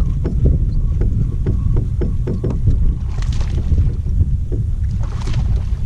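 Wind rumbling on the microphone with small waves knocking and lapping against the hull of a bass boat. Two brief hissing sounds come about three and five seconds in.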